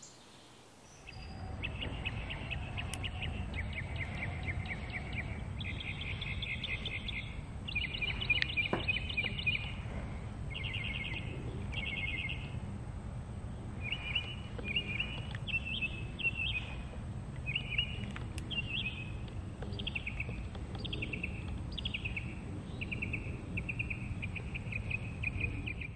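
Outdoor ambience: a run of short, buzzy chirping trills, about one a second, over a steady low rumble.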